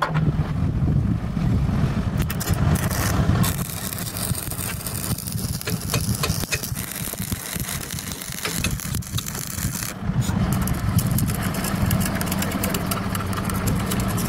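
Stick (arc) welding: the electrode arc crackles and fries steadily for several seconds in the middle as a root bead is run on steel plate, over a steady low hum.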